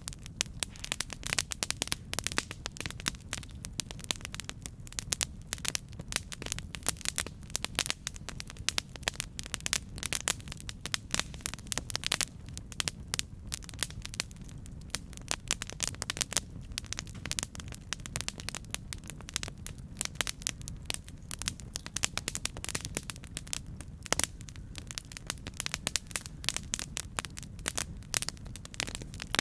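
Campfire burning, with dense, irregular crackles and pops over a steady low rumble of the flames.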